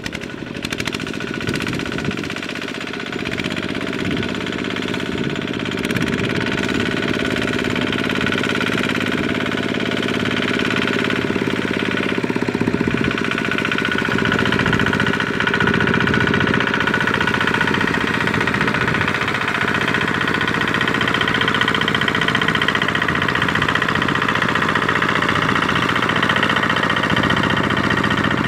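Single-cylinder diesel engine of a two-wheel power tiller running with a steady rapid knocking chug as it pulls a trailer loaded with rice sacks. It gets louder over the first several seconds, then holds steady.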